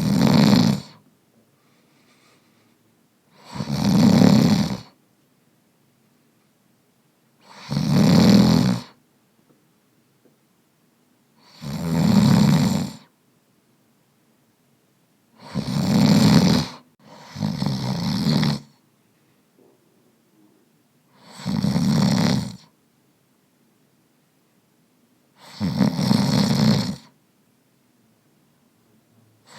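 A person snoring: a rasping snore about every four seconds, with near silence between breaths. There are eight snores, two of them close together a little past the middle.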